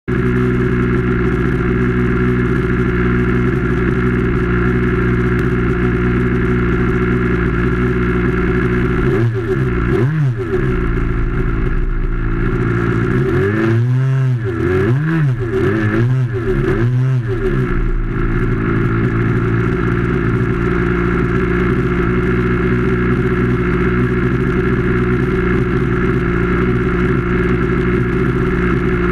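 Sig Kadet LT-40 model airplane's small engine running close to the microphone with its propeller turning, mostly at a steady speed. The engine speed swings once about nine seconds in, then rises and falls four times in quick succession around the middle before settling steady again.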